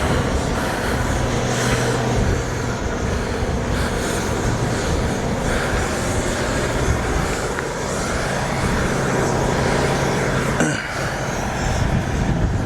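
Strong wind buffeting the microphone: a loud, steady rumbling rush with a faint low hum coming and going.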